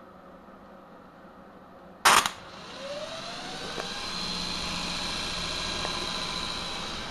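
A loud sharp snap about two seconds in, then a 13-inch six-pole 72-volt forklift motor, in an electric-converted Ford Explorer, spins up on its first run. Its whine rises in pitch for about a second and a half, then settles into a steady run with a high whine over it as the drivetrain and wheel turn.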